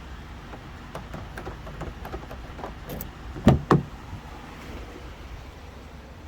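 Light clicks and taps of metal parts being handled, then two solid knocks about a quarter second apart near the middle, over a low steady hum.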